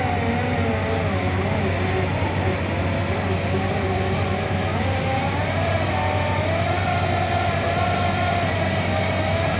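Bauer BG 20 H rotary drilling rig running: a steady, loud diesel engine drone with a low hum and a whine that wavers up and down in pitch as the machine works.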